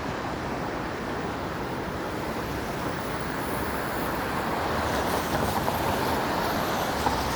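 City street traffic on wet pavement in the rain: a steady hiss of tyres and passing cars, a little louder from about halfway through.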